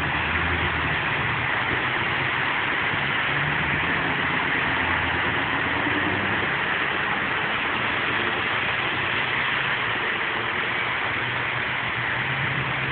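Steady road traffic noise: heavy engines idling low under the hiss of vehicles passing on a wet road.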